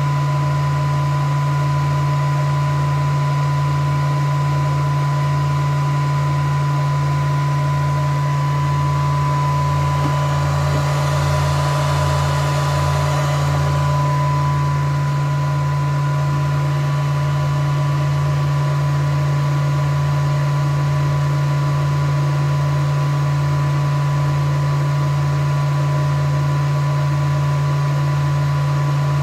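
Leightronix Ultra NEXUS-SDI broadcast unit making a loud, steady droning noise during boot-up, with a thin steady high tone over it and a brief swell of hiss about halfway through. The owner wonders whether this noise on boot is a sign that the machine is dying.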